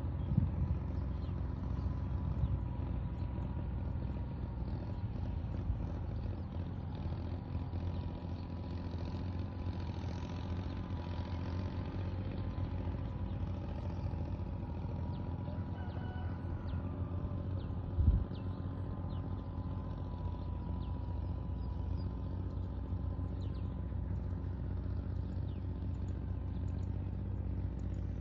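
A motor running steadily with a low, even hum and a faint thin whine above it. Faint high ticks scatter over it, and there is a single thump about 18 seconds in.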